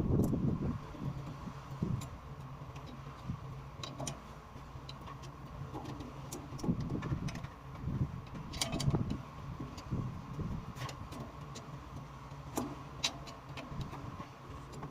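Steady machinery hum with scattered sharp clicks and irregular low knocks, as of metal parts and tools being handled during a hydrant repair.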